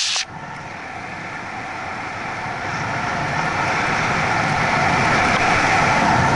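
Wind rushing over the microphone with tyre noise from a bicycle rolling down a hill on asphalt, growing steadily louder as it picks up speed. A brief hiss right at the start.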